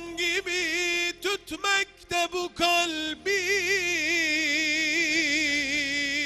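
Solo voice singing a Turkish ilahi, a hymn in praise of the Prophet, in an ornamented melismatic line: short broken phrases at first, then, about halfway through, one long held note with a wide vibrato.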